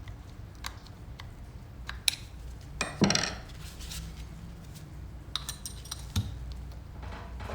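Small metal clicks and clinks of hand tools and a C-clip being worked into the bore of a motorcycle rear brake master cylinder, to seat the clip in its retaining groove. The clicks are scattered, with a sharper knock about three seconds in and another about six seconds in.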